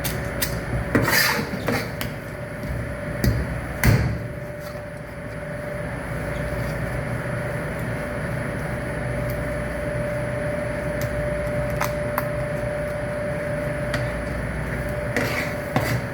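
Fish cutting: a few sharp knocks, as of a blade chopping on a wooden block, in the first four seconds and two more near the end, over a steady low hum with a thin steady whine.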